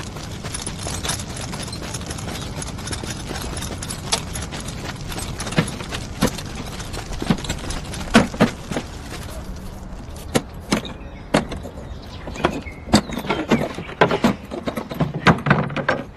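Wooden ammunition crates and metal boxes being handled and opened: scattered sharp knocks and clunks over a steady background hiss, growing into a dense clatter in the second half.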